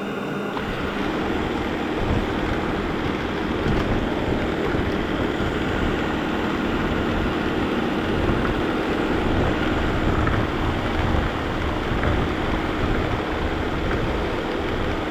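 Vacuum cleaner running: a steady hum over dense rushing noise, with an uneven rumble underneath as it is worked across the floor.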